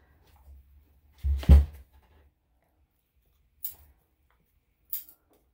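Grooming scissors snipping a Yorkshire terrier's leg hair: two short, sharp snips about a second apart in the second half. A dull thump about a second and a half in is the loudest sound.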